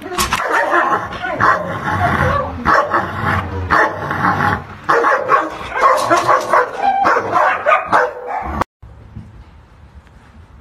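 A dog barking and yipping rapidly and without pause, worked up by food held out just beyond its kennel cage; the barking cuts off suddenly near the end.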